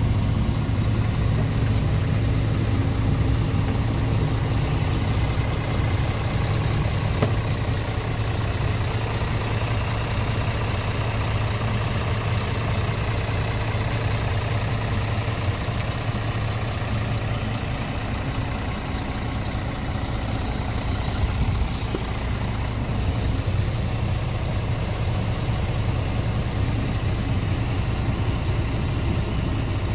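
Scania R tractor unit's engine idling steadily, a constant low hum.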